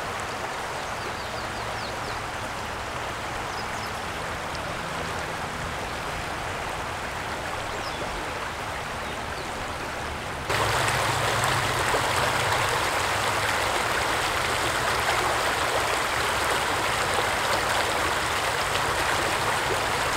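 Shallow creek running over pebbles and rocks, a steady rush of water. About halfway through it turns suddenly louder, to faster water breaking white over the rocks of a riffle.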